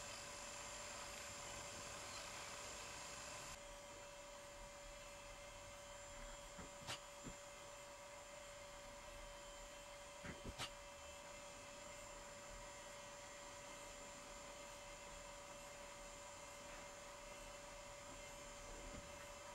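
Quiet room tone: a faint steady hum over hiss, with a couple of soft clicks about seven and ten seconds in.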